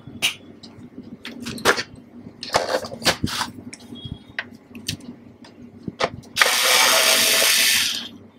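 Clicks and knocks of the plastic clock case being handled on the bench, then a cordless electric screwdriver runs for about a second and a half near the end, backing a screw out of the back panel to open the case.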